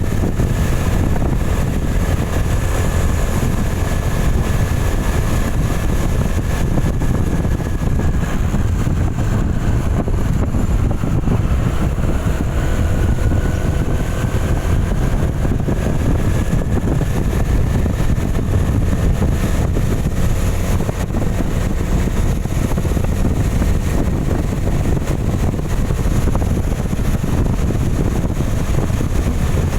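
Vehicle driving on a rain-soaked highway: a steady, loud rumble of engine and tyres on the wet road, with a faint whine that drifts slowly up and down in pitch.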